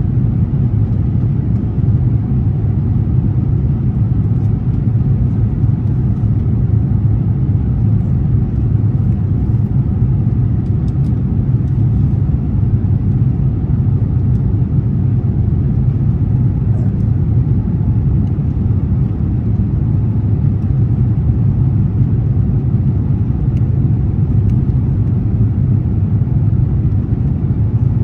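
Jet airliner cabin noise in flight: a steady low rumble of engines and rushing air that stays even throughout.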